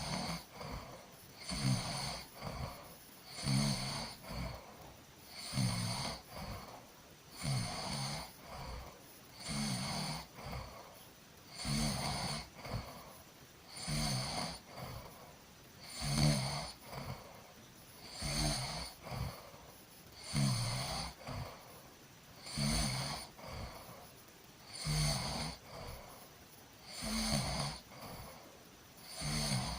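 A sleeping person snoring in a steady rhythm, one snore about every two seconds, each a low buzz over a breathy hiss.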